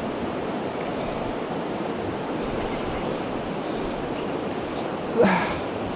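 Steady rush of a shallow river running over rocky riffles. A short voice-like exclamation rises about five seconds in.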